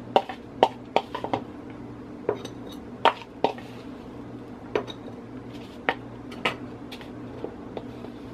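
Metal spoon clicking and scraping in a plastic bowl as dry powdered seasoning is scooped out: about a dozen sharp, irregular taps, busier in the first half, over a steady low hum.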